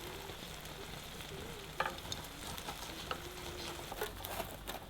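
Mince and vegetables frying in a pan, a steady sizzle with a few light clicks of stirring about two seconds in.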